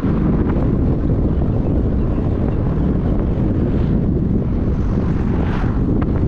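Wind buffeting the microphone over the steady rumble of a vehicle driving along the road.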